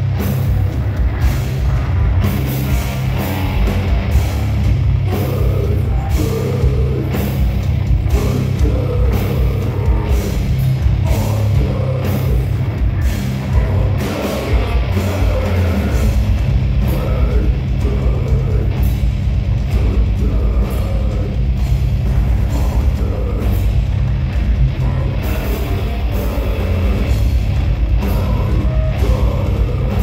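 Heavy rock band playing live: electric guitars and a drum kit, loud, with a heavy low end and frequent drum and cymbal hits.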